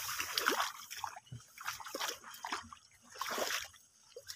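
Tall grass swishing and rustling against legs and clothing as two people push through it on foot, in irregular bursts.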